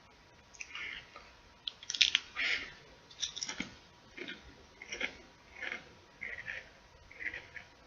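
Close-miked chewing of crunchy potato chips: a steady run of crunches, about one every two-thirds of a second, with the loudest, sharpest bite about two seconds in.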